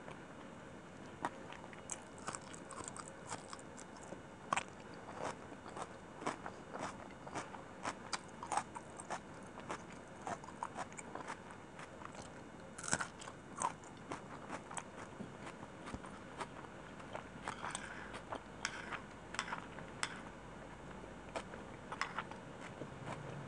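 Close-miked chewing and wet mouth sounds of a person eating chicken biryani, a steady run of irregular crackly clicks and smacks. About thirteen seconds in, a sharper crunch as she bites into a green chili.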